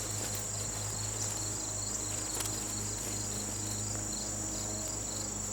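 Insects trilling: a steady high-pitched drone with a regular chirping beneath it, about four chirps a second, over a low steady hum.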